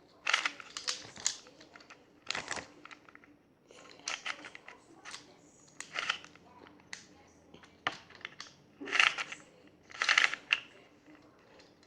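Plastic Rubik's cube being twisted by hand: irregular runs of clicking and clacking as its layers turn, with short pauses between the turns.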